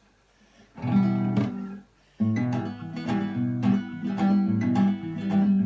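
Acoustic guitar strumming chords as the song's introduction. One chord rings about a second in and stops, then steady rhythmic strumming starts about two seconds in.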